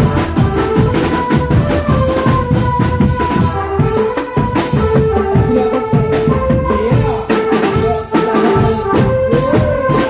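Drumband music: fast, dense drum beats under a held, stepping melody line.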